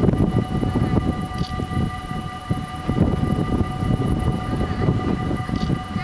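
Wind buffeting the microphone with a gusty low rumble, over a steady high hum of several tones, as a distant electric passenger train approaches along the overhead-wired line.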